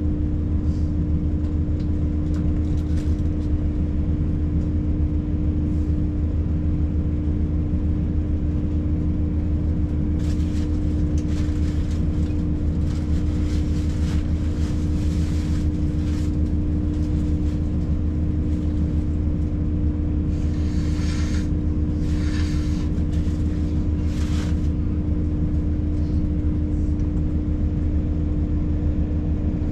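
Steady low engine hum with a held tone, heard from inside a standing diesel train. From about ten seconds in, a container freight train passing close alongside adds rattling wheel clatter, loudest between about twenty and twenty-five seconds in.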